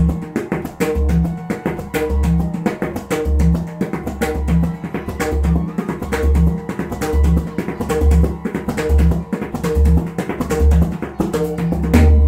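A pakhawaj played in a steady rhythmic pattern. Crisp strokes on the right treble head come several times a second. Deep open bass strokes on the left head come about once a second and gradually draw closer together, ending on a ringing bass stroke near the end.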